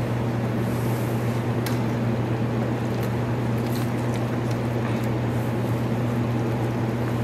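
A steady low mechanical hum, with faint wet squishing and a few light clicks as rubber-gloved hands toss seasoned green onion kimchi in a stainless steel bowl.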